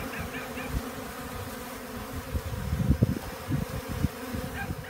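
Dense honeybee colony buzzing in a steady hum as the bees are driven out of their tree cavity by smoke, with irregular low rumbling thumps mixed in.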